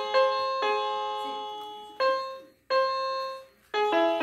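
Electronic floor piano mat playing single piano notes as a puppy's paws step on its keys. The notes come at uneven intervals, each ringing and fading, with a quick run of three near the end.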